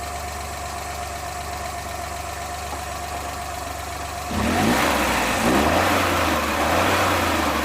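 Suzuki F6A three-cylinder engine idling steadily during a PCV vacuum test. About four seconds in it gets louder and rougher.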